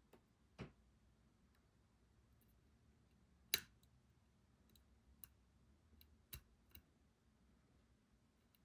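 Faint, scattered metallic clicks of a lock pick and tension wrench working the pins of a pin-tumbler challenge lock during picking. The loudest click comes about three and a half seconds in, and a quick cluster of smaller clicks follows later.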